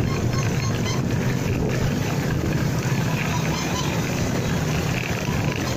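Motorcycle riding along at a steady pace, its engine and the wind and road noise making a constant rumble and hiss on a phone camera's microphone.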